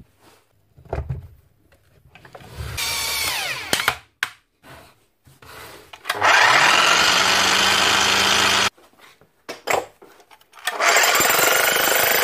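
DeWalt electric demolition breaker test-run after a repair: a loud steady run of about two and a half seconds that stops suddenly, then it starts again near the end. Knocks of the tool being handled come before, and a shorter power-tool burst about three seconds in winds down in pitch.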